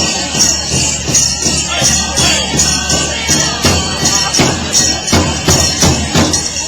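Powwow drum song: a large drum struck in a steady beat of about three strokes a second, with metallic jingling riding on each beat.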